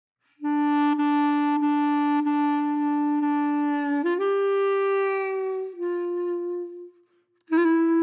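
Background music: a woodwind instrument plays slow, long-held notes. One long note gives way to a higher note and then a slightly lower one, and after a short break a new note begins near the end.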